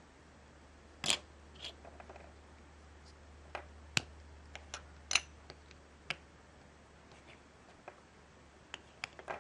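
Small LEGO minifigure pieces clicking and tapping as they are handled and pressed together: a dozen or so irregular sharp plastic clicks, the loudest about a second in and again around four and five seconds.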